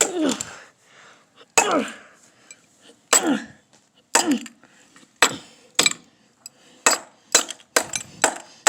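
A plastic toy figure being struck hard again and again: about a dozen sharp knocks, spaced about a second apart at first and coming faster near the end.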